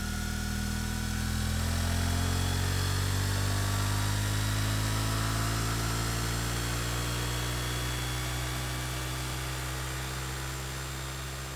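Suzuki GSX-8S 776 cc parallel-twin engine running through its stock exhaust. The note is loudest about two seconds in, then its pitch falls slowly and it quietens, as the revs come down.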